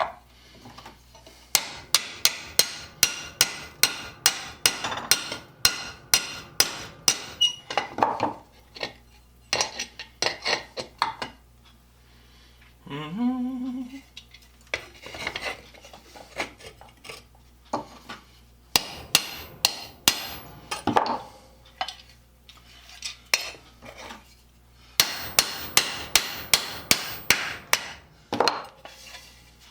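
Hammer peening a steel rivet to join steel plates with wood between them, with sharp metallic ringing blows. The blows come in runs of about three a second, separated by pauses.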